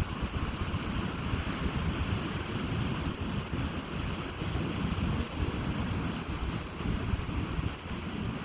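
Ocean surf washing on a beach, a steady hiss, with wind buffeting the microphone in a low, gusty rumble.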